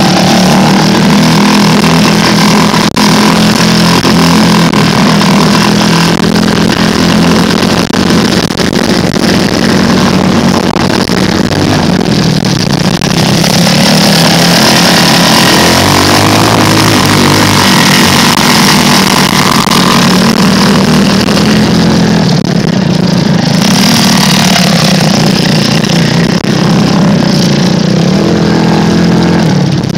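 Small off-road buggy's engine running continuously as the buggy drives over grass, its engine speed shifting a little up and down.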